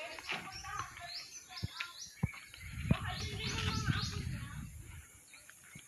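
Small birds chirping, a rapid run of short, high, falling chirps repeated again and again. A low rumble sits under them in the middle, along with a few sharp clicks.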